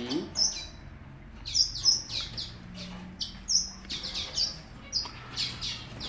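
Caged canaries chirping: short, high call notes that slide downward, coming singly or a few in quick succession at irregular intervals.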